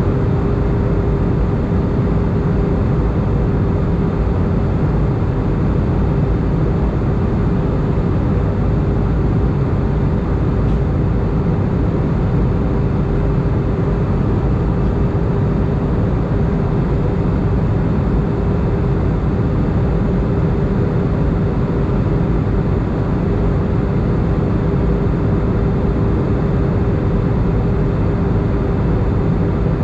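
Steady cabin noise inside an Airbus A319 airliner in flight on descent: the rumble of the jet engines and rushing air, with a steady humming tone running through it.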